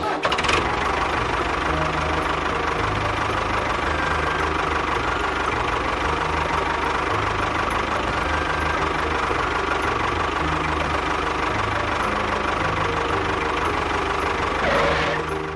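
A small engine running steadily with a dense, rattling noise. It swells briefly just before it stops near the end.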